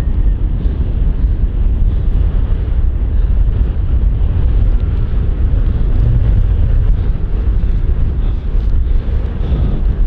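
Wind buffeting the microphone: a loud, steady low rumble that rises and falls slightly.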